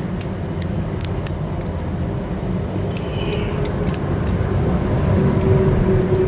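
Steady low rumble with scattered small clicks and ticks of handling.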